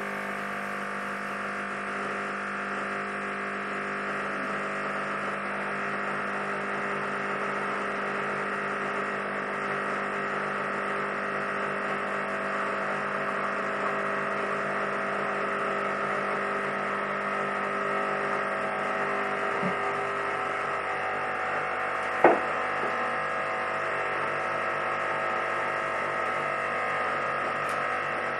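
Espresso machine pump running steadily through a double-espresso extraction, a constant hum. A single sharp click comes about two-thirds of the way through.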